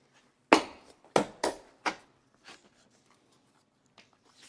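Wooden sauna cabin panels knocking as they are pushed and tapped into their slots: four sharp wooden knocks in the first two seconds and a fainter one after, then quiet.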